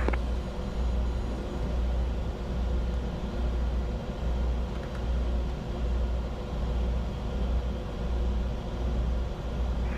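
Steady flight-deck noise of a Bombardier Challenger 605 in descent: a low rumble of airflow and engines, with faint steady tones over it.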